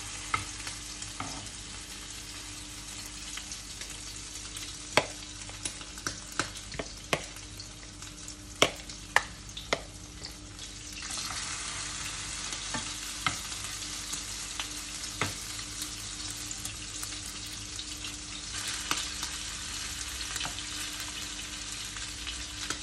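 Spoonfuls of minced veal and cheese patty mixture sizzling as they fry in hot vegetable oil in a frying pan. The frying grows louder about eleven seconds in as more patties go in. Sharp clicks of the spoon knocking come several times between about five and ten seconds in, with a few more later.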